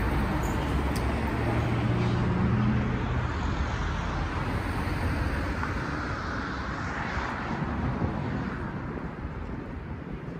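Street traffic: a motor vehicle engine passes close in the first few seconds, then the noise settles into a general traffic hum that slowly grows quieter.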